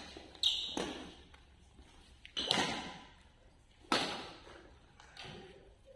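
Badminton rackets striking a shuttlecock during a doubles rally: about five sharp smacks, spaced roughly one to one and a half seconds apart, each ringing on in the echo of a large hall.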